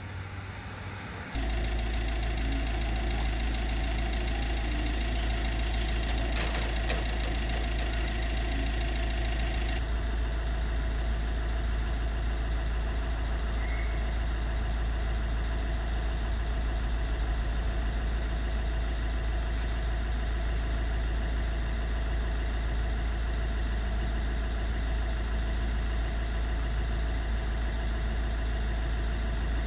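A steady, loud mechanical drone with a deep rumble and a constant hum, like an engine idling, that comes in abruptly about a second in.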